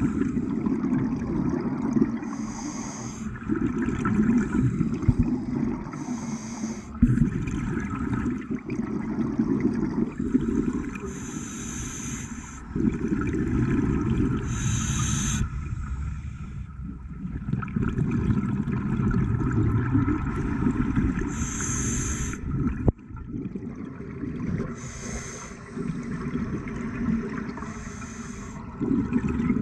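Scuba diver breathing through a regulator underwater: a short hiss of inhalation every few seconds, alternating with longer rumbling, gurgling streams of exhaled bubbles. A single sharp knock about three quarters of the way through.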